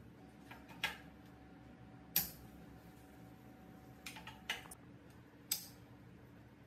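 Several sharp clicks and taps of tools and small metal engine parts being handled during the engine restoration work. The loudest comes about two seconds in, with a cluster of smaller ones about four seconds in.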